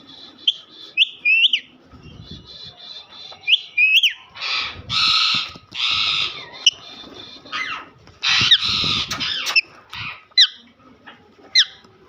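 Pet parrots calling: short sharp rising chirps and a fast chatter, broken by two long harsh squawks, the second near the end.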